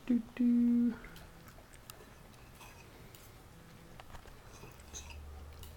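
A short hummed "mmm" on one held note, about half a second long, just after the start, then only faint small clicks; a faint low hum comes in near the end.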